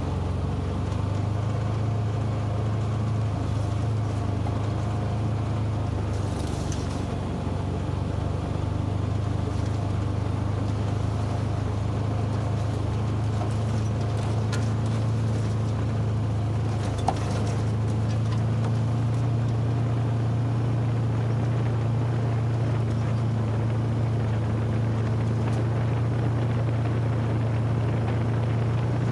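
UTV engine running steadily under way, its hum holding nearly one pitch with a brief dip about six seconds in. A single sharp click a little past halfway.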